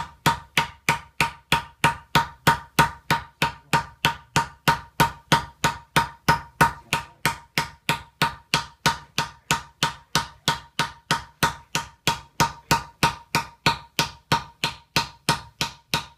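Hammer blows on a silver disc resting on a wooden tree-trunk block: blocking, the first doming of the disc into a can lid. Steady, even strikes about three a second, each with a short metallic ring.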